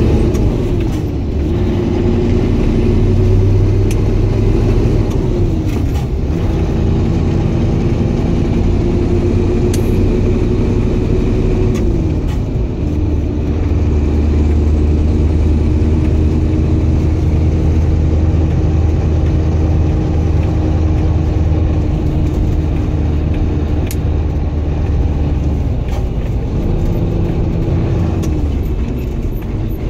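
Mercedes-Benz SK 2638 truck's V8 diesel engine heard from inside the cab while driving through a manual gearbox. Its pitch climbs slowly and drops sharply at each gear change, three times in the first dozen seconds. It then holds a long steady cruise, and there are two more gear changes near the end.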